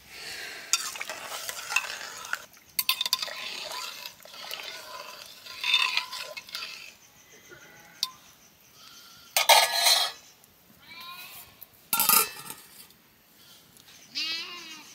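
A metal utensil stirring and scraping in a cooking pot, in irregular bursts, with clinks of pots and dishes. A sheep bleats briefly near the end.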